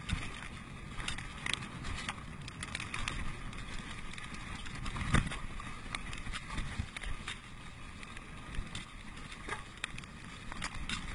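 Mountain bike rolling fast over a dirt forest trail: steady tyre and ride rumble with frequent rattling clicks and knocks from the bike over bumps, and one heavy thump about five seconds in.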